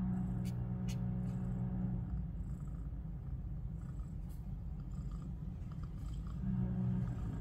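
Soft ambient background music with a low held drone that drops out about two seconds in and comes back near the end. In the gap there is a low rumble and a few faint wet clicks from newborn kittens suckling at their mother.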